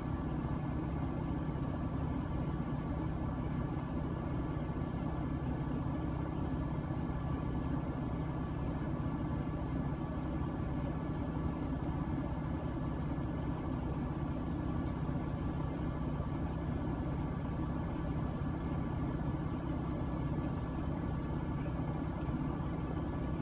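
Semi-truck's diesel engine idling steadily, an even low hum heard inside the cab.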